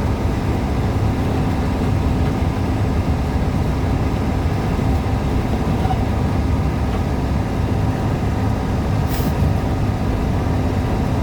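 Diesel truck being driven: a steady low engine drone with road noise, and one short high hiss about nine seconds in.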